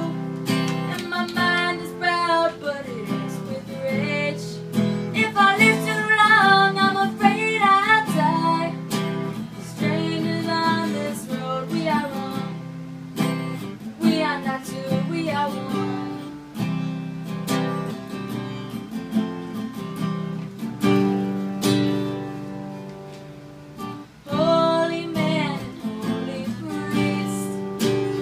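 Acoustic guitar strummed in steady chords, with a woman singing over it for the first several seconds and again near the end.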